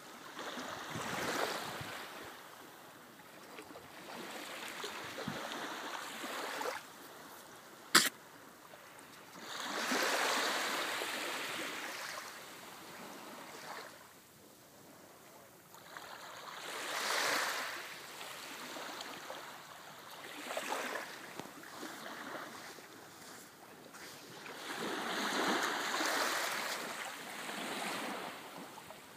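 Shallow sea waves washing up a sandy beach and draining back, swelling and fading every few seconds. A single sharp click comes about eight seconds in.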